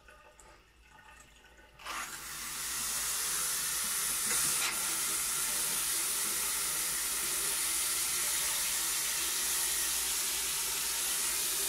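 Water running from a single-lever Ikea Dalskar bathroom faucet into the sink bowl and down the open drain. About two seconds in the flow is opened up, and the rush of water becomes loud and steady. The tap is being run on hot to clear air from the supply line.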